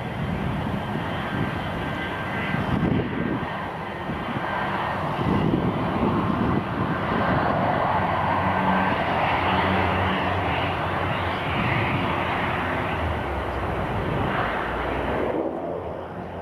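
Jet airliner on landing approach: a steady rush of engine noise that swells through the middle, with a low rumble underneath.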